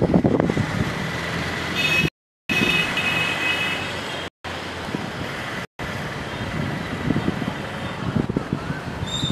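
City street traffic: a steady rumble and hiss of passing vehicles. The audio cuts out completely three times for a moment, and a faint high tone sounds about two seconds in.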